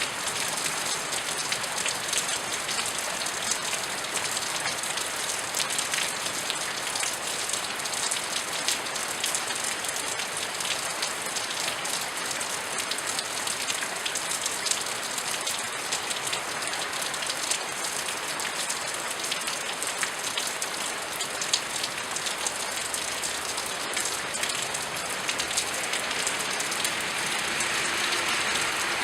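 Steady rain falling, with many individual drops striking hard surfaces close by as a dense, even ticking over the rain's hiss.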